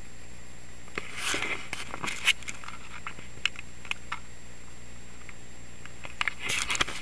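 Footsteps crunching on loose gravel and stones, in a cluster of short crackles about a second in and another near the end, over a steady hum.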